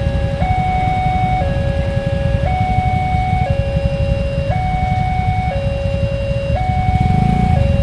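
Railway level-crossing warning alarm: an electronic two-tone signal stepping between a lower and a higher note about once a second, sounding while the crossing is closed for an approaching train. A steady low rumble runs underneath.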